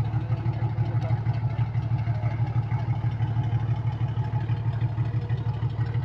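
A river ferry's diesel engine running steadily, giving a low, even throb.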